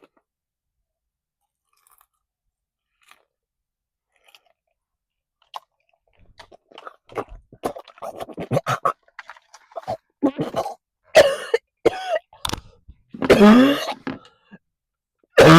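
A person chewing a whole tarantula with crisp crunching, starting about five seconds in. Then come coughs and gagging sounds as she struggles to get it down.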